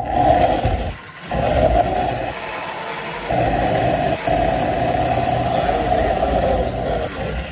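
Electric motor and gearing of a Marx 333 toy steam locomotive running loudly with a steady mechanical hum while it is held by hand on the track, dropping out briefly about a second in.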